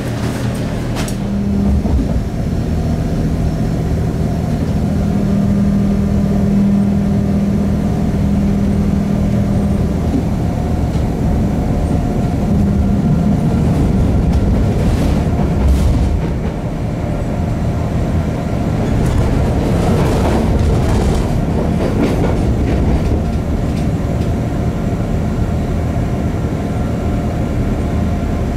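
Charleroi light-metro car running, heard from inside the car: a low steady hum for roughly the first ten seconds, then the rumble of the wheels on the track with a few clicks.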